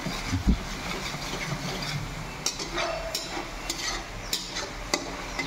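A spoon stirring paneer and masala in a kadai, scraping and clicking against the metal over a light sizzle, with one knock about half a second in.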